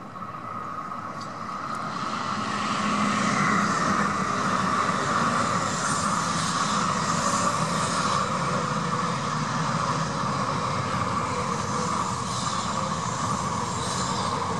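Shinkansen bullet train passing at speed on an elevated track: a rushing roar of wheels and air that builds over the first few seconds, then holds steady as the long train runs past.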